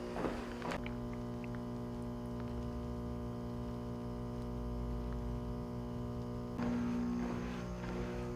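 Background music: a sustained, held chord that shifts to a new chord about six and a half seconds in, with a few sharp ticks in the first second.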